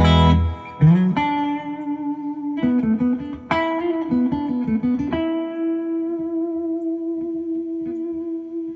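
Duesenberg Starplayer Special electric guitar through a compressor and overdrive into a tube amp. It plays a chord, then a short run of picked single notes, and holds the last note for over three seconds with long, even sustain from the compression.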